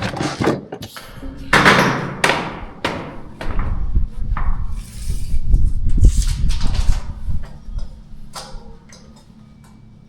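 A run of knocks, bangs and scrapes, like things being moved and handled, with a low rumble through the middle. It quiets down near the end.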